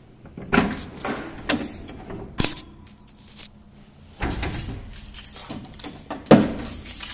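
A series of sharp knocks and clanks, with a rumbling, scraping stretch starting about four seconds in and the loudest knock about six seconds in.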